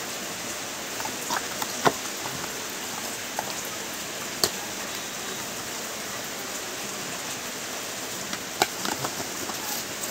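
Steady hiss with a few sharp clicks and taps from a cardboard phone box and its inner tray being handled, the loudest about two seconds in and again near the end.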